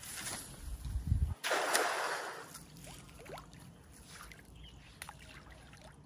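Water splashing and sloshing, with one louder splash about a second and a half in, just after a brief low rumble.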